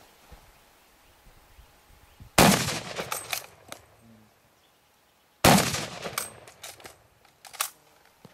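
A rifle fires twice, about three seconds apart. Each shot is followed by sharp metallic clacks of the action being worked to chamber the next round, and a few more clicks come near the end.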